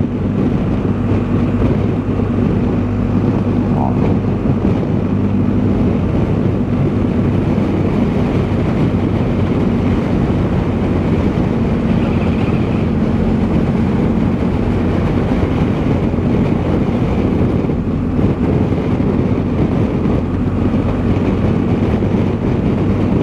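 BMW R1250 GS boxer-twin motorcycle engine running steadily at road speed, with wind rushing over the microphone.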